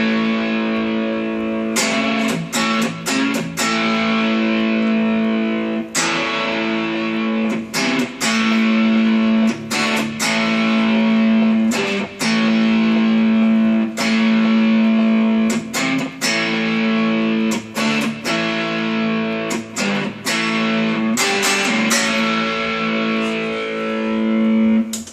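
Epiphone Sheraton semi-hollow electric guitar on its neck pickup, played through a LoveDrive overdrive pedal (a Zendrive clone) with the tone turned down. Chords are struck and left to ring, a new one every second or two, with brief gaps between them.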